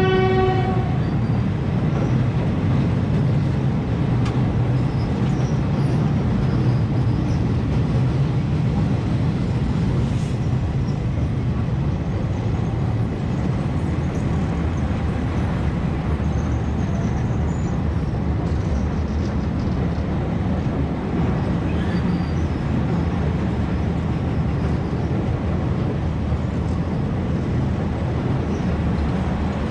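Diesel passenger train running steadily with a low rumble and an even hiss. A single-tone train horn blast cuts off just under a second in.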